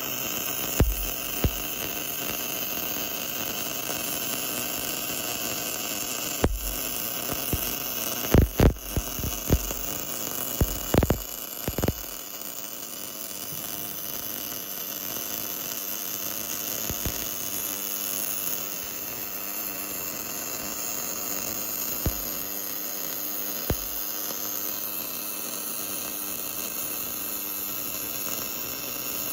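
Portable boring-and-surfacing machine running steadily on a worn axle bore, a constant whine and hiss. A cluster of sharp knocks comes around the middle, with a few single clicks later.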